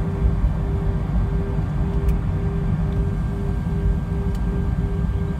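Steady cabin noise of an Airbus A320ceo taxiing: the engines at idle and a low rumble, with a steady hum that swells and dips evenly.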